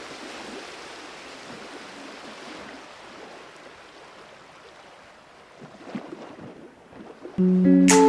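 A steady rush of water noise that slowly fades. Shortly before the end, loud music starts suddenly.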